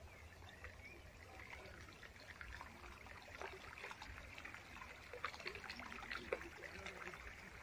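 A small stream trickling, faint, with many irregular little splashes and gurgles that get busier in the second half.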